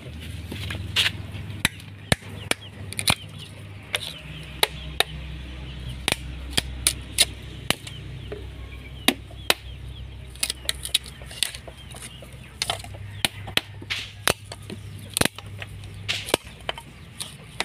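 Hard coconut shell being cracked and pried off with a hand-held coconut shell opening tool: a run of sharp, irregular cracks and clicks, one or two a second, as the blade works around the shell and pieces break away. A low steady hum runs underneath.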